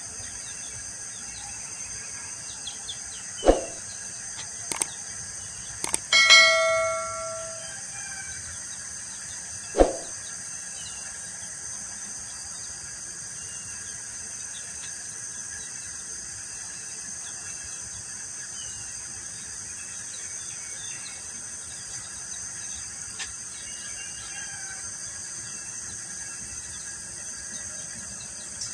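Baby chicks peeping faintly over a steady high buzz of insects. About six seconds in, a single bell-like chime rings out and fades over about a second; it is the loudest sound. A couple of dull thumps come before and after it.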